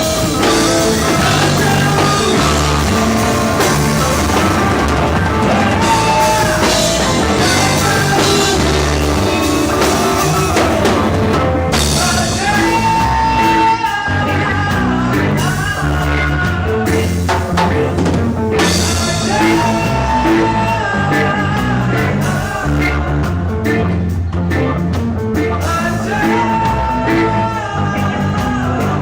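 Live rock band playing a song with a lead singer, drum kit and guitar, coming in loud at once.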